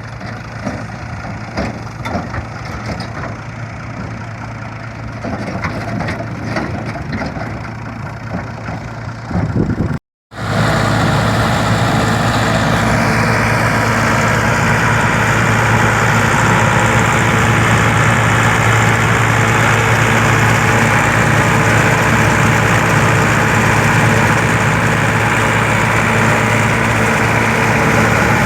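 Massey Ferguson 385 diesel tractor engine driving a straw chopper blower. For the first ten seconds the engine runs with irregular knocks and clatter. After a brief drop to silence, a louder steady rush from the machine runs over the engine's low drone.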